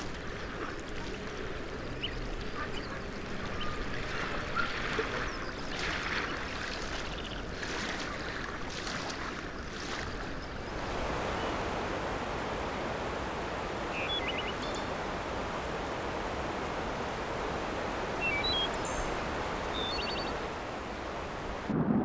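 Outdoor water ambience. In the first half, waves wash in along the shore in soft surges. About halfway through it changes to a steady rush of flowing water, with a few short, high bird chirps.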